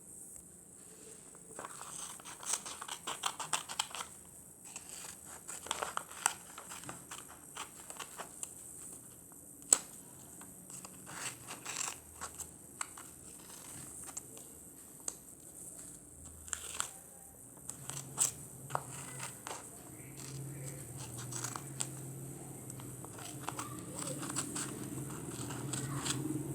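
Scissors snipping through paper, with the paper rustling and crinkling as it is handled: a run of short sharp snips and rustles. A faint low hum comes in about two-thirds of the way through.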